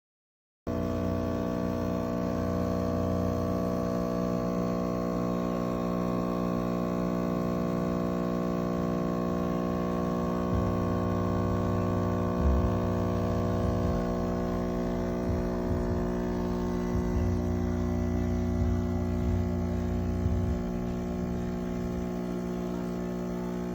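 Espresso machine's pump running, a steady electric hum with many overtones and a rumble that wavers underneath; it starts abruptly about a second in.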